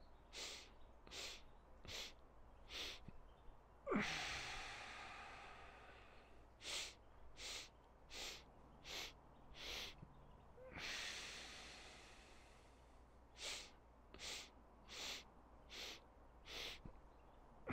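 A man breathing in a five-part inhale: five short, quick inhales in a row, then one long, smooth exhale that fades away. The cycle runs about three times.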